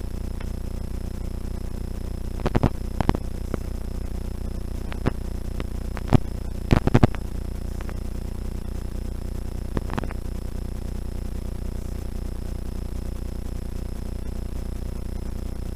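Steady low rumble and hum of a rally car driving on a snowy road, picked up by a camera on the bonnet, with no rise or fall in engine pitch. Sharp knocks come in small groups: a few about two and a half seconds in, a cluster around six to seven seconds, and one near ten seconds.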